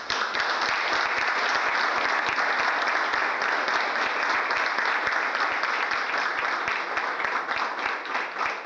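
Audience applauding: dense clapping that thins into scattered separate claps near the end.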